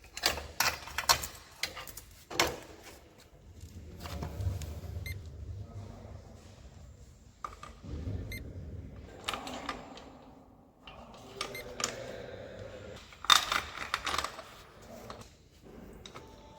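Metal parts and tools clinking and clanking as they are handled, with a cluster of sharp clanks in the first couple of seconds and again about three seconds before the end, and stretches of low rumbling in between.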